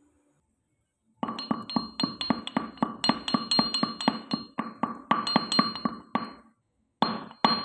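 Pestle pounding in a mortar to crush ingredients for a home remedy: rapid strikes, about four a second, each one ringing. It starts about a second in, stops briefly near six seconds, then resumes.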